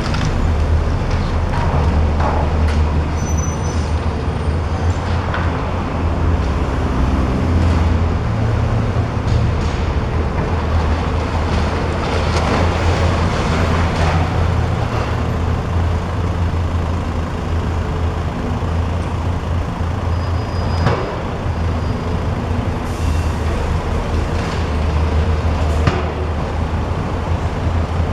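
Heavy demolition machinery running with a steady low engine rumble, with occasional cracks and crashes of building material breaking.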